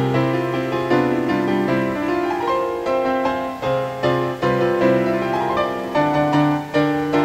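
Background music: a piano cover of a film theme, playing a melody over held low notes, with new notes struck about every second.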